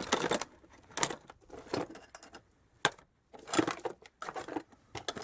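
Small metal motorcycle spare parts being rummaged through by hand, clinking and rustling in irregular bursts, with one sharp click about three seconds in.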